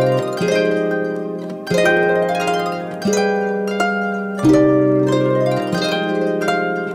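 Background music of plucked, harp-like notes. A new chord is struck about every second and a half, and each one rings and fades.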